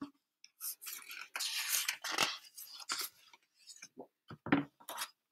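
Paper pages of a picture book being turned by hand: uneven rustling and crinkling in short bursts over several seconds.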